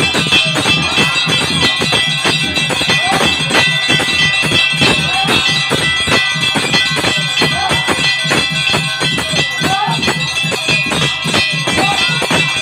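Brass puja hand bell rung continuously by hand, its clapper striking several times a second over a sustained, ringing tone.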